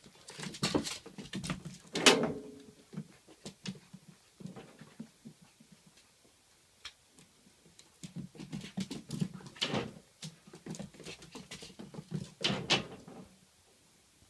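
A miniature dachshund puppy's paws and claws scrabbling and pattering on a wooden floor and a padded floor cushion as it dashes and kicks about. The quick scuffs and taps come in bursts: in the first few seconds, briefly near the middle, and again through most of the last third.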